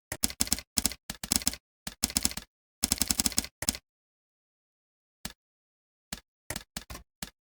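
Computer keyboard typing: fast runs of keystrokes for the first few seconds, then a pause and a handful of separate key presses near the end.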